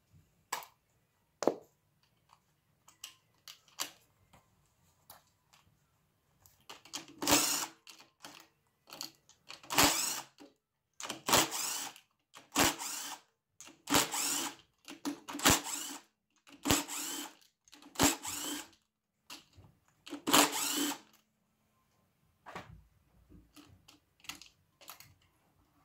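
Cordless drill spinning in about eight short runs, each under a second, backing screws out of a battery pack's plastic cover. A few light clicks and knocks of handling come before and after.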